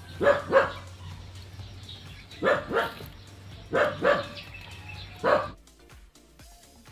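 A dog barking, mostly in pairs: seven short barks over about five seconds, over a low steady hum. The sound cuts off about five and a half seconds in.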